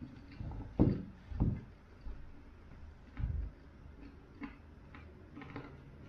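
Two loud knocks about a second in and a duller one near the middle as a bowl of popcorn is shifted on the table, then scattered faint crunching clicks of popcorn being chewed.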